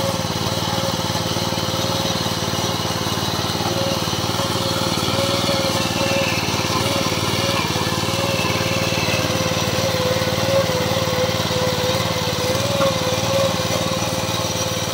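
MTD 750 power weeder's engine running at a steady speed under load while its rotary tines till dry soil.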